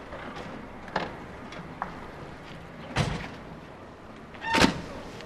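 Car doors being shut with a thud, the loudest and last near the end, over a steady outdoor background hiss, with a couple of lighter knocks earlier.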